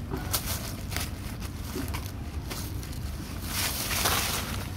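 Dry leaf litter crackling and rustling as two young macaques wrestle on it, in scattered sharp crackles with a longer rustle near the end, over a steady low rumble.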